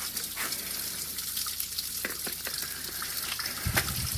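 Coolant pouring steadily out of the open water pump drain hole on a CFMOTO 500S ATV as the cooling system is drained, with a short low thump near the end.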